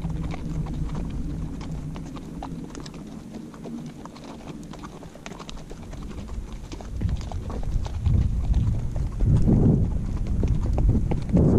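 Hooves of several horses walking on a dirt trail, a steady clip-clop heard from the saddle. From about seven seconds in, a louder low rumbling noise swells in over the hoofbeats.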